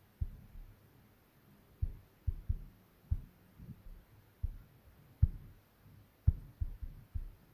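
Fingertip taps on a phone touchscreen: about a dozen short, dull, low thumps at an irregular pace, as the on-screen arrow buttons are pressed again and again to nudge an image layer a pixel at a time.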